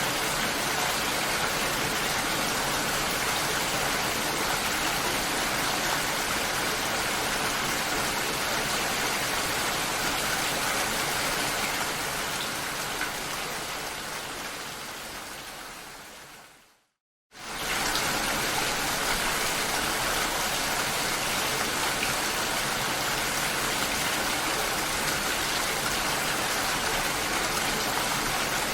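Steady rain falling, an even hiss of many drops. Past the middle it fades away over a few seconds, stops completely for a moment, then quickly comes back at full level.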